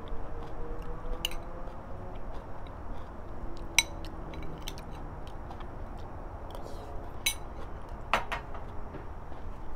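Eating utensils tapping and clinking against a small glass bowl, with light taps throughout and four sharper clinks.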